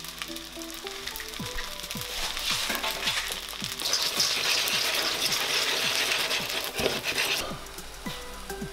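Hot spaghetti sizzling in a steel saucepan as a raw egg is stirred and tossed through it by hand. The hiss stops near the end. Background music with a steady beat plays underneath.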